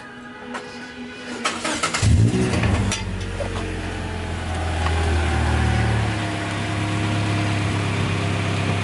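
A car engine cranks and starts about two seconds in after a few light clicks, then idles steadily. The idle rises briefly a few seconds later before settling.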